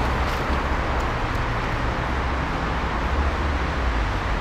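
Steady city street noise of road traffic: a continuous hiss with a low rumble underneath.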